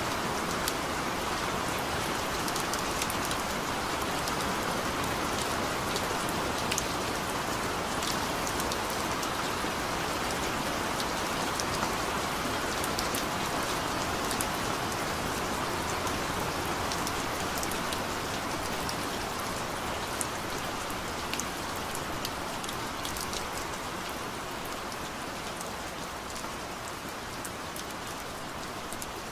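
Steady rain falling, a dense hiss with many sharp ticks of single drops striking close by. It grows a little softer over the last few seconds.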